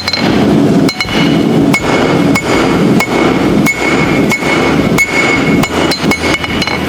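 Blacksmith's hammer striking steel on an anvil in a steady rhythm, about one blow every 0.7 seconds, each blow ringing. A steady low rumble runs underneath.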